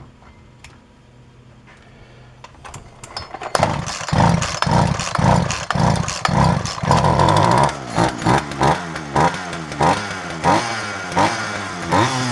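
Old Poulan two-stroke chainsaw engine firing about three and a half seconds in and running with its revs rising and falling over and over. It is running on a few drops of fuel put down the carburetor, which should have been pumping fuel from the tank by now and is not.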